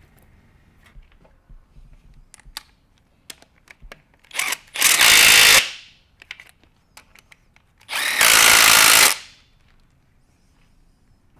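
Power tool run in two short bursts of about a second each, with light clicks and clatter of tools between.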